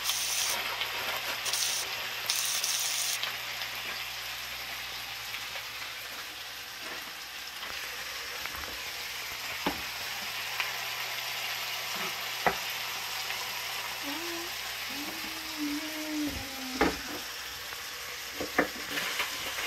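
Sliced onions, tomatoes and chili flakes sautéing in oil in a frying pan, a steady sizzle, with a wooden spatula knocking against the pan now and then.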